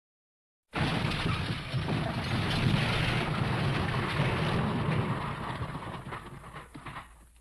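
An edited sound effect: a dense, noisy rumble that cuts in abruptly out of silence about a second in, holds for several seconds and fades away near the end.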